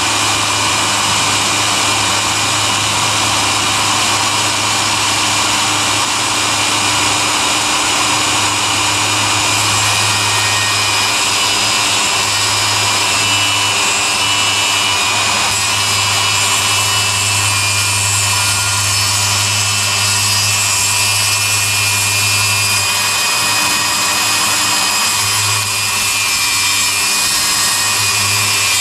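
Milwaukee table saw running under load while ripping a long pine board, the blade cutting steadily through the wood. The motor's note dips briefly near the end as the cut finishes.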